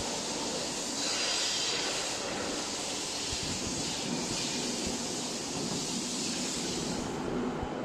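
Steady machinery noise of a bus assembly hall: a constant hiss over a low rumble, with the hiss easing about seven seconds in.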